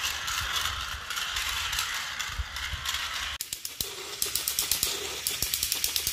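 Battery-powered Plarail toy trains running on plastic track, with a steady gearbox whir and rattle. After a cut about halfway through, a closer train gives a run of regular clicks that come faster near the end.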